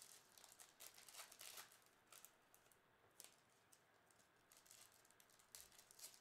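Faint crinkling and rustling of a foil trading-card pack wrapper as it is torn open and the cards are slid out, in scattered short crackles, busiest about a second in and near the end.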